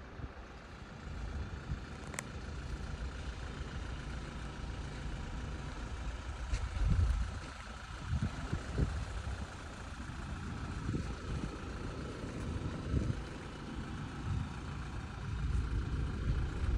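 Kenworth truck's diesel engine idling with a steady low hum, with irregular low thumps on the microphone.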